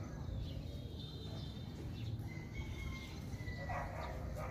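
A dog barking a couple of times near the end, with a bird's thin whistled notes before that, over a steady low background rumble.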